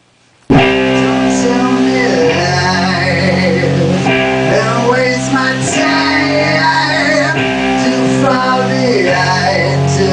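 Electric guitar playing held chords that change every second or two, with a man singing over them. It starts abruptly about half a second in and stays loud.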